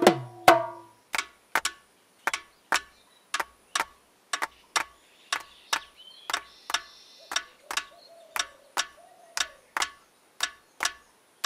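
Sharp, woody percussion clicks keeping a steady Bihu folk rhythm, falling in pairs roughly once a second, each with a brief ringing pitch and almost no bass.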